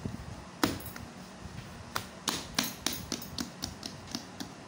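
Hands slapping and pressing risen yeast dough to knock the air out of it: a sharp slap about half a second in, then a quick, uneven run of smaller slaps and squishy clicks from about two seconds on.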